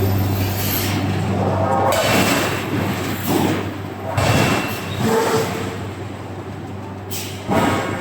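Forge-shop machinery running: a steady low hum under irregular rushing, clattering bursts roughly every one to two seconds.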